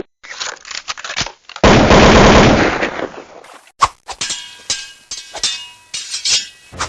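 Rapid sharp cracks like machine-gun fire: a few scattered cracks, then a loud dense rattling burst of about a second and a half, then more scattered cracks with a little ringing after them.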